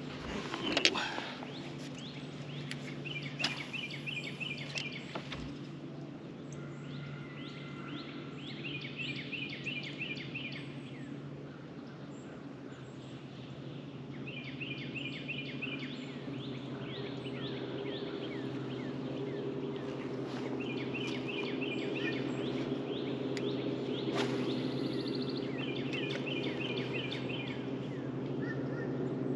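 A songbird repeating a short, fast phrase of high notes every five or six seconds. Under it runs a steady low hum, likely the boat's bow-mounted electric trolling motor, which grows louder in the second half. A couple of sharp knocks sound in the first few seconds.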